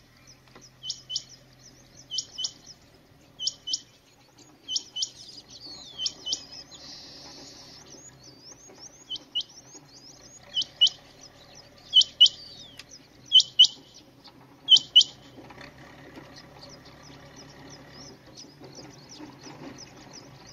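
Rain quail calling: a sharp, high doubled note repeated about every second and a half, loudest just past the middle, stopping after about fifteen seconds. Fainter chirps of other small birds run underneath.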